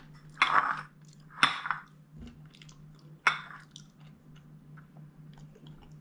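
A person chewing a mouthful of fried rice: three short, loud chewing sounds in the first three and a half seconds, over a steady low hum.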